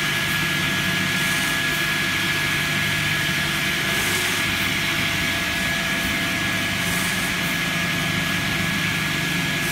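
Double-blade sliding-table log saw running steadily as a log is fed through its circular blades: a constant motor hum with a thin, steady high whine over it.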